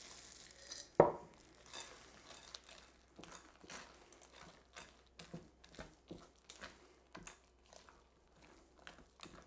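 Spatula stirring butterscotch chips into thick cookie batter in a glass bowl: faint, irregular scrapes and clicks. One sharp knock about a second in.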